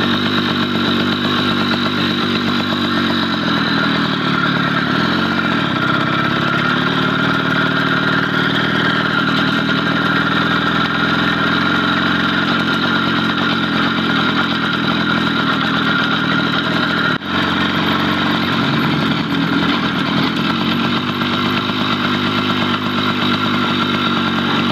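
The nearly new 1 hp two-stroke D4 engine of a 1958 LVZ V-902 motorized bicycle running under way as it is ridden, a steady buzzing whose pitch drifts a little with speed.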